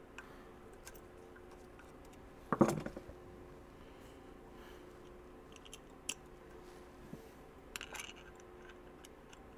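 Small metallic clicks and handling noises as the new float-bowl screws are started by hand into the S&S Super B carburetor, with one louder clatter about two and a half seconds in and a few more clicks near the end, over a faint steady hum.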